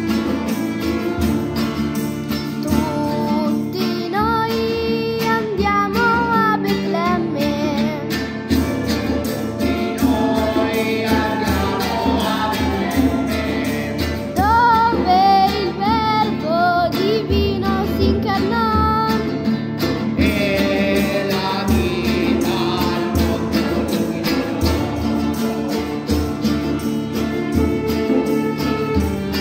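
Music: a woman sings an Italian Christmas song in Italian over a small acoustic band of guitar, violin, clarinet, harpsichord and bongo.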